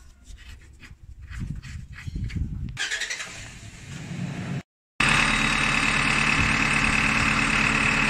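Light clicks and a low rumble, then after a short dropout, about five seconds in, an engine idling steadily and loudly.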